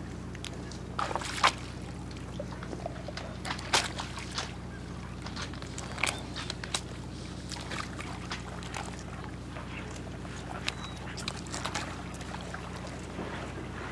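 Water sloshing and lapping in short, irregular splashes over a steady low hum.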